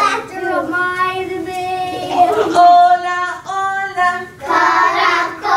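A group of young children singing a short tune together in held notes, with a woman's voice among them; about four seconds in the group comes in fuller and louder.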